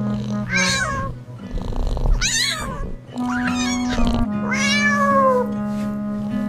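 A cat meowing about four times, high calls that sweep in pitch, over steady background music.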